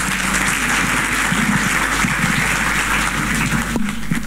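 Congregation applauding, the clapping dying away near the end.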